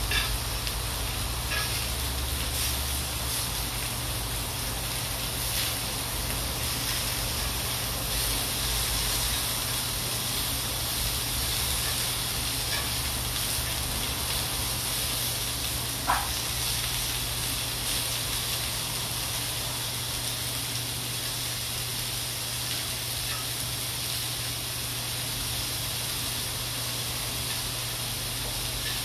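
Skewered meat sizzling steadily on a hot grill pan over a steady low hum. A single brief click sounds about sixteen seconds in.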